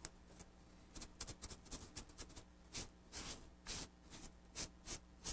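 Fingers and a damp natural sponge rub and dab small newspaper strips down onto a leather-hard clay tray, making short rubbing noises in an irregular run. They come more often from about halfway through.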